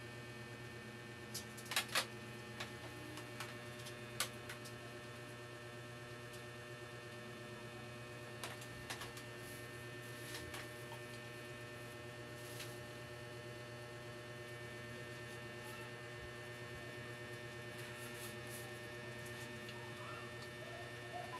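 Steady electrical mains hum with a few sharp clicks about two and four seconds in, and a few faint chirps near the end.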